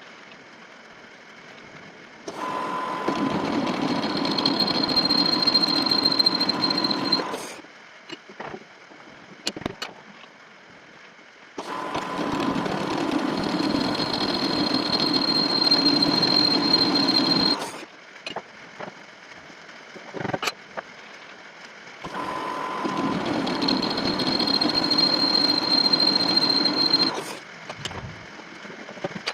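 Lathe cutting in three passes of about five seconds each, the tool on the workpiece making a loud rushing noise with a steady high whistle through most of each cut. Between the passes the lathe runs quieter, with a few clicks.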